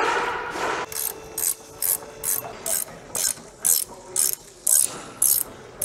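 Hand ratchet wrench tightening the nut on a front anti-roll bar link. It gives short bursts of ratcheting clicks, about two a second and some ten in all, as the handle swings back between strokes.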